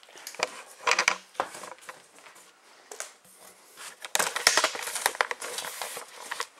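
Plastic wrapping rustling and crinkling as a framed painting is handled, in a brief burst about a second in and a longer, louder spell from about four seconds in.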